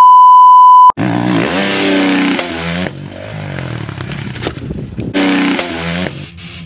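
A loud steady electronic beep for about the first second, then a motocross dirt bike's engine revving hard, its pitch climbing as the throttle opens about a second in and again about five seconds in.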